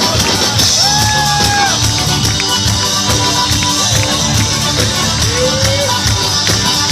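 Instrumental folk tarantella music with a quick, steady percussive beat; a few short held notes or voices rise over it about a second in and again near the middle.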